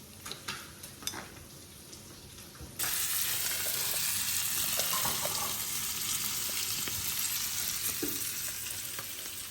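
Food frying in a hot pan: a loud, steady sizzle starts suddenly about three seconds in, after a quieter stretch with a few light clicks.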